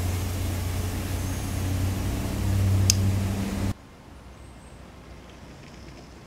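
Street sweeper truck running: a steady low engine hum with a noisy wash over it, swelling slightly before it cuts off abruptly about three and a half seconds in, leaving only a faint steady outdoor background.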